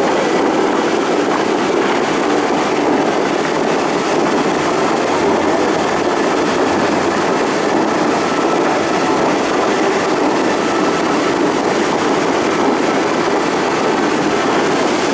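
Steady, loud roar of the Bellagio fountain's many water jets spraying up and crashing back onto the lake.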